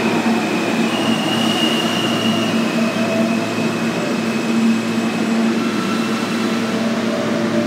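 New York City subway train running along the station platform: a steady rumble of steel wheels on rail with a faint high wheel squeal and motor hum, echoing in the underground station.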